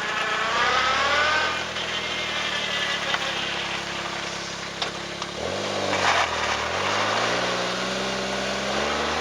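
Car engine running, its pitch dropping and then climbing again about five and a half seconds in, with an abnormal noise that the owner suspects comes from the suspension or from near the turbo.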